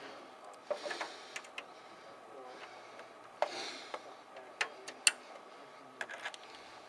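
Hardware being handled while server parts are fitted: scattered sharp plastic-and-metal clicks, the loudest about five seconds in, with a couple of short rustles.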